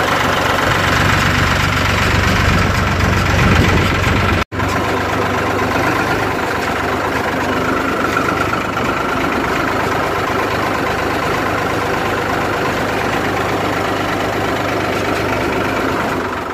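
Ford 3600 tractor engine running steadily, with a brief break about four and a half seconds in.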